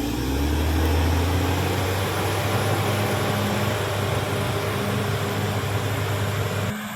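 Caterpillar D6R XL bulldozer's diesel engine running hard: its pitch and level rise in the first second, then hold steady. The sound changes abruptly shortly before the end.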